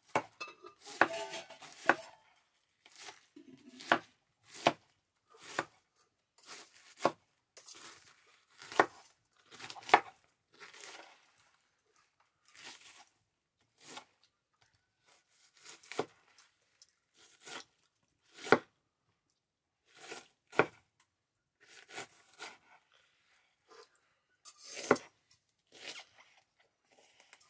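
Large knife slicing through a head of cabbage on a wooden chopping board: a crisp crunch through the leaves ending in a knock on the board with each stroke, about one stroke a second at an uneven pace.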